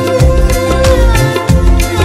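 Background music with a steady drum beat and a long held note over other sustained tones.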